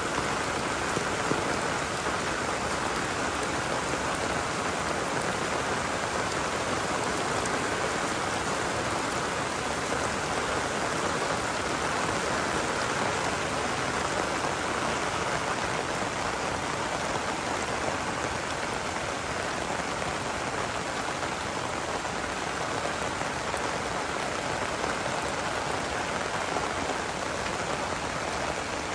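Heavy rain falling steadily on the ground and surrounding surfaces, an even unbroken hiss of drops.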